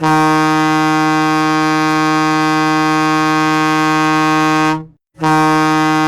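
Moncton Wildcats' hockey goal horn: a deep, steady horn blast that cuts off just before five seconds in and sounds again a moment later.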